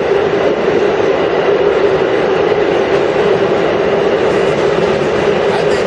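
Vintage Low-V IRT subway car running on the track, heard from inside the car: a loud, steady rumble with a constant drone underneath.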